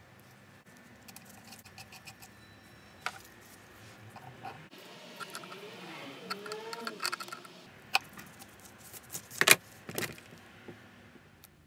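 Adjustable wrench clinking and scraping on a steel nut and bolt as the nut is tightened, with scattered light metallic clicks and a few sharper clinks near the end.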